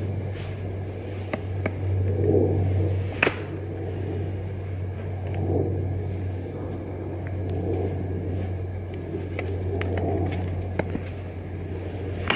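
A large knife chopping into a wooden stick: one sharp chop about three seconds in, a few lighter knocks, and another chop near the end, over a steady low rumble.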